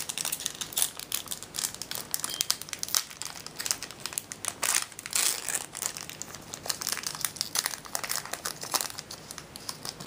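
Foil wrapper of a Yu-Gi-Oh! booster pack crinkling as it is worked open by hand, a continuous run of quick crackles.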